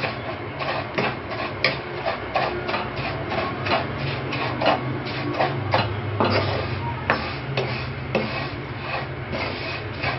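Wooden spatula scraping and tossing dry vermicelli around a non-stick pan, in quick strokes about three a second, as the vermicelli is roasted in a little oil until lightly golden.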